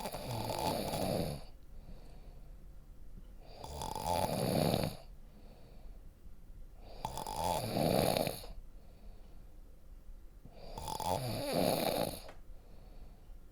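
A person snoring deeply: four long snores at a steady pace, about three and a half seconds apart, each lasting about a second and a half, with quiet breathing gaps between them.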